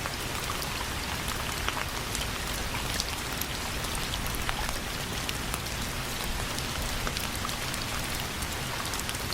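Steady rainfall, an even hiss of rain with many small drop ticks landing on a surface.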